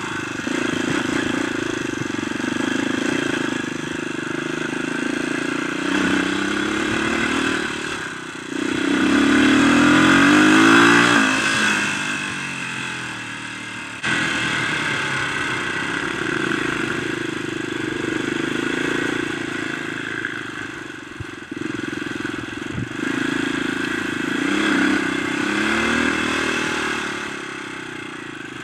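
Dirt bike engine running while being ridden, revving up and down with the throttle; the loudest rev-up comes about ten seconds in, and the sound changes abruptly at an edit about halfway through.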